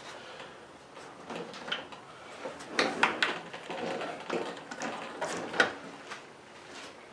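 Lawn mower parts being handled and fitted back together: irregular clicks, knocks and scrapes, with the sharpest knocks about three seconds in and again past the five-second mark.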